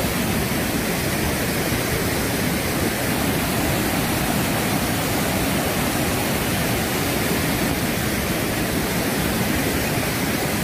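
Muddy floodwater rushing steadily in whitewater over the rocky spillway of a reservoir overflowing in flood.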